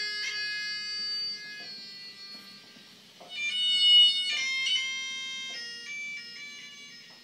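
Moog Liberation synthesizer playing high, bright notes in a loose, free-form line, with a louder cluster of notes about three and a half seconds in, then a stepping-down run of short notes that fades.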